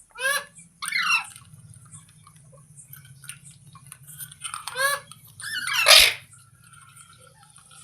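Rose-ringed parakeet (green pet parrot) giving about four short, harsh screeching calls, the loudest and longest near the end, over a steady low hum.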